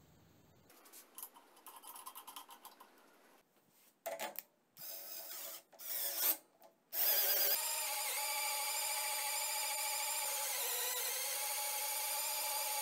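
Cordless drill spinning a cast-metal hand meat grinder's auger in place of its crank, mincing a potato. After a few short bursts, from about seven seconds in it runs steadily with a whine that wavers slightly.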